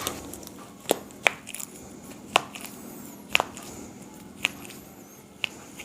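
Joints cracking under chiropractic manipulation: a run of sharp pops, about one a second.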